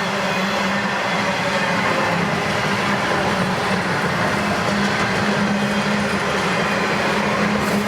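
A CSX freight train rolling past: the steady noise of its cars running on the rails, with a steady low hum underneath.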